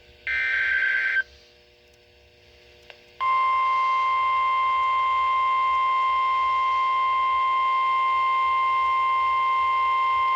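Emergency Alert System signal on weather radio. First comes a one-second screech of SAME header data. About two seconds later a loud, steady 1050 Hz warning alarm tone begins and holds. Together they are the start of a new severe thunderstorm warning.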